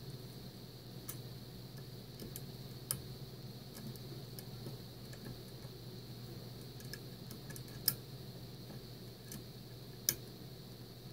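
Irregular small metallic clicks of a lock pick working the serrated pins of a Mul-T-Lock Interactive cylinder under tension, the sharpest clicks just before 8 seconds and about 10 seconds in.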